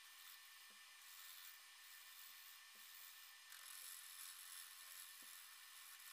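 Faint hiss of a tool cutting wood, uneven and stronger for a stretch in the second half, with a few soft knocks.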